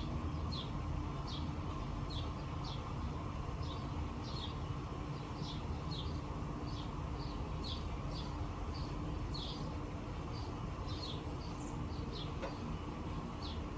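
A bird calling a short, high chirp over and over, about one and a half times a second, over a steady low background rumble.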